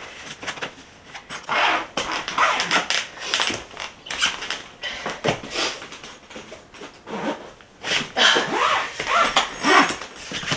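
A packed hard-shell suitcase being pressed down and zipped shut, in irregular bursts of zipper and handling noise, with short vocal sounds near the end.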